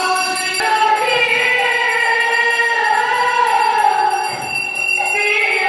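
Devotional temple music: long held, gently gliding sung notes over a steady jingle of small metal percussion.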